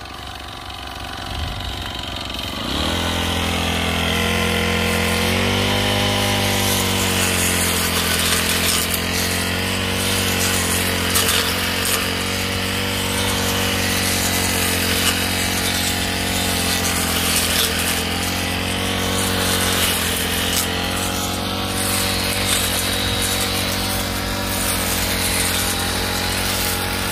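Petrol brush cutter with a freshly sharpened metal blade cutting weeds while held at fairly low engine speed, so that the sharp blade tips do the cutting without high revs. The engine picks up about three seconds in, rises a little more around five seconds, then runs steadily.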